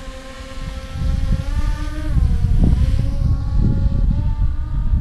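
Yuneec Mantis Q quadcopter's propellers buzzing as it hovers just after takeoff: a steady multi-tone hum whose pitch dips slightly about two seconds in. Wind on the microphone adds a low rumble underneath.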